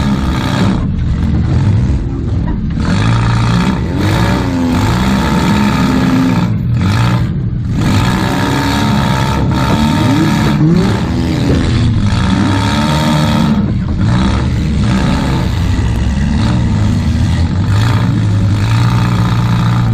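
Demolition derby Toyota Camry's engine revving up and down as the car is driven around the arena, heard from inside the stripped cab.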